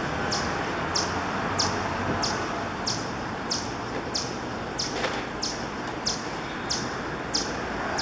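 High-pitched electronic chirping from a wall-mounted motion-sensor animal repeller: a shrill tone that drops sharply in pitch, repeated evenly about every two-thirds of a second.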